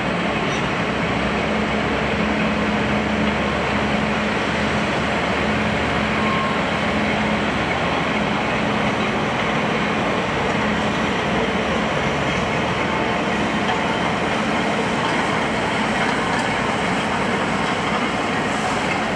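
A train running on the rails: a steady, loud rolling rumble and rush with a faint low hum.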